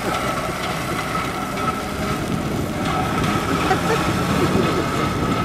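Engine of a jeep converted to run on rails, running steadily as it passes along the track, with a steady whine over a low rumble. Onlookers' voices mix in.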